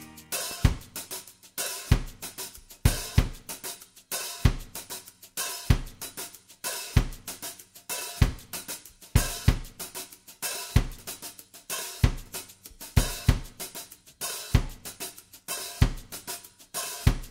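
Background music in a drums-only passage: a drum kit keeps a steady beat of kick-drum thumps, snare and hi-hat, with no melody.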